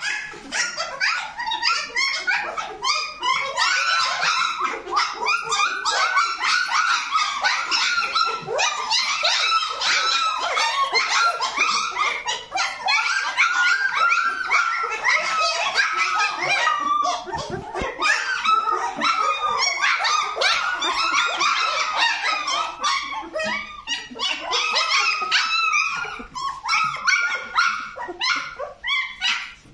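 A litter of 17-day-old puppies whining, yipping and squeaking without pause, many short calls overlapping into one continuous chorus.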